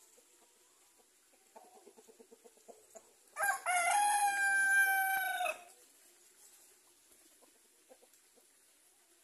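Rooster crowing once, a loud crow about two seconds long that ends in a long held note. Just before it comes a run of quick, low clucks.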